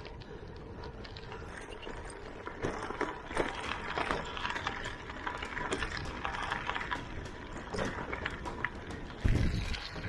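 Romet Boreas 1 bicycle being ridden over a rough unpaved track: steady tyre noise with dense crackling and rattling from about two and a half seconds on, and one heavy low thump about nine seconds in.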